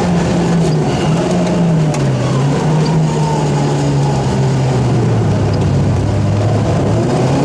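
Rally car engine heard from inside the cockpit, driven hard along a snowy stage, with steady road and tyre noise under it. The engine note dips briefly a couple of times early on, then its pitch falls steadily through the second half as the car slows.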